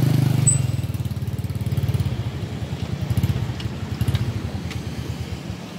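Motorcycle engine running close by, then pulling away, its pulsing note swelling briefly and fading out.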